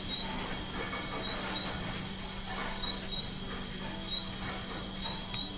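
Insect chirping, a short high chirp repeating about once or twice a second, over a steady low hum, with faint soft sounds of toppings being placed by hand.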